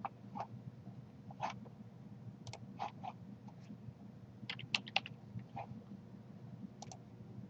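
Computer mouse clicking irregularly, with a dozen or so sharp clicks, some in quick pairs.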